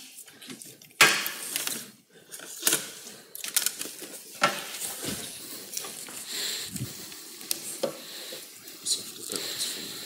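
Scattered clicks, knocks and rustles of a cable and laptop being handled at a lectern while a lost projector connection is being fixed, with a louder rustling burst about a second in.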